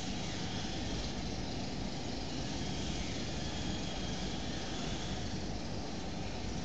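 Steady background noise, an even hiss with a low rumble beneath it, unchanging throughout.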